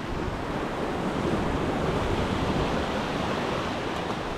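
Sea surf breaking and washing over the rocks below, a steady rushing hiss, with wind buffeting the microphone.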